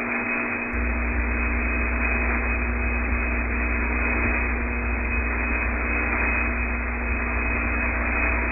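Steady static hiss and hum of the Apollo 8 air-to-ground radio link, open with no one speaking. A deeper low hum comes in under it less than a second in.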